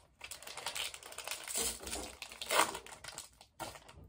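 Topps baseball card pack being handled: the wrapper crinkles in a few short bursts, with light clicks of cards being flicked through.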